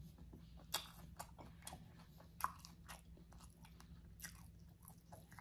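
Close-miked chewing of a bunless burger: faint wet mouth smacks and clicks at irregular intervals, a few sharper than the rest.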